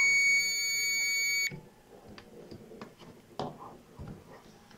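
Digital multimeter's continuity buzzer giving one steady high beep that stops about a second and a half in, as the probes bridge a laptop DC jack's supply leg and a diode: the two points are connected. A few faint taps of the probe tips follow.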